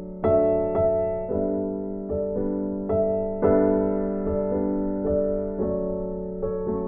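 Background music: a gentle keyboard piece with piano notes struck one after another, each ringing out and fading, over a held low note.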